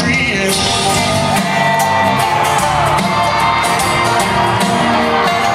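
Live country band playing an instrumental break between verses: a lead guitar line with held and bent notes over drums and bass. It is heard from far back in the audience, with crowd shouts mixed in.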